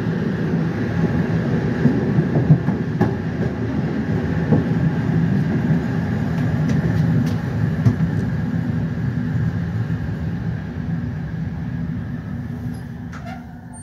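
Passenger train running on the rails, heard from the rear of the train: a steady low rumble of wheels with occasional sharp clicks over rail joints and points. It grows quieter over the last few seconds as the train slows on entering the station.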